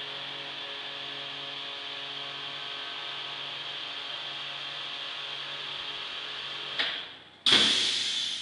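Double-chamber vacuum packing machine with its vacuum pump running, a steady hum and hiss. Near the end a click, then a sudden loud rush of air that fades over about a second as the vacuum in the chamber is released at the end of the packing cycle, followed by another click.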